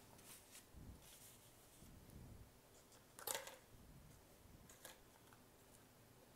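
Near silence, with faint rustling and a few light clicks from small paper picture cards in a clear plastic cup being handled. The clearest click comes about three seconds in.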